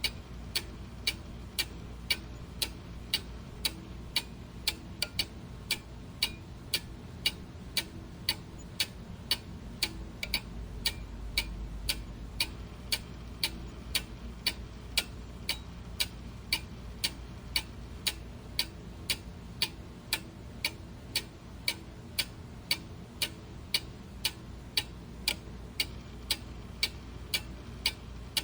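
Clock ticking steadily, about two ticks a second, over a faint low rumble.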